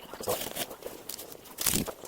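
Irregular knocks, clicks and rustling from hands working on a treadmill during a belt replacement, with a louder knock near the end.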